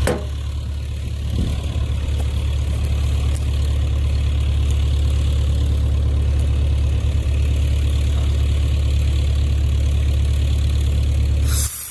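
Heavy engine running steadily with a deep, even drone.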